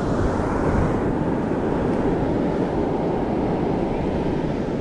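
Steady rumbling wind noise on the microphone, mixed with the wash of surf breaking on the beach.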